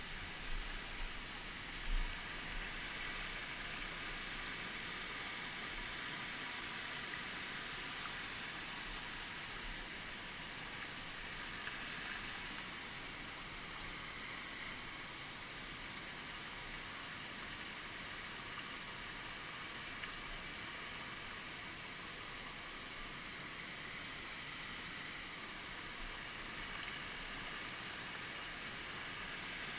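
A rocky creek rushing over boulders and small cascades, a steady even rush of water. A soft thump about two seconds in.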